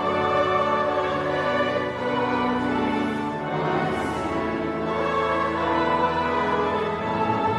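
Instrumental orchestral music with slow, sustained chords.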